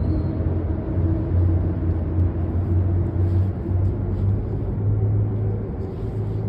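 Steady low machinery drone with a continuous rumble, holding an even level throughout, with no clear knocks or changes.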